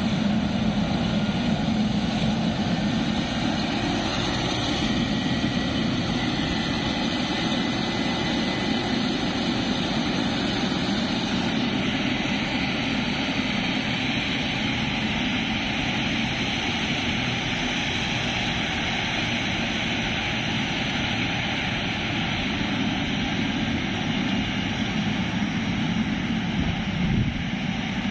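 Boeing 777-300ER's GE90 jet engines running with a steady, continuous noise that holds at an even level throughout.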